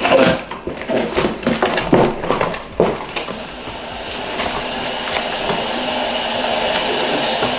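Cardboard box of a flat-pack barbecue being opened and handled, with a run of sharp rustles and knocks from the flaps and packaging in the first three seconds, then a steadier rustling noise as the parts are pulled out.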